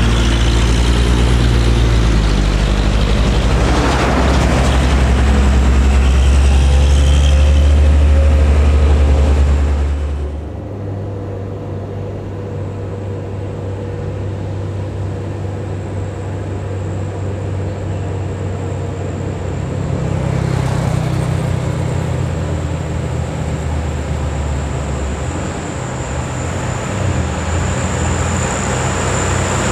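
Heavy diesel truck engines labouring up a steep hill and passing one after another. A deep, steady engine note is loudest for the first ten seconds and falls away suddenly, then a quieter engine runs on with another truck passing about two-thirds of the way in.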